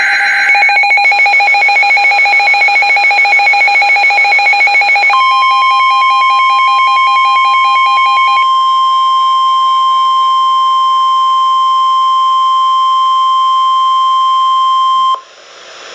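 Emergency alert tones. Rapid pulsing electronic beeps run for about five seconds. Then the steady NOAA Weather Radio 1050 Hz warning alarm tone holds for about ten seconds and cuts off abruptly, marking the start of a new warning broadcast.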